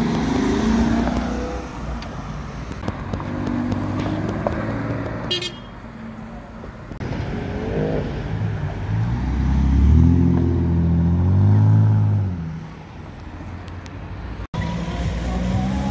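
Ford Mustang engines pulling away one after another, the revs climbing as they accelerate. The loudest is a deep run of revs in the middle that rises and then falls away. A brief high-pitched toot sounds about five seconds in.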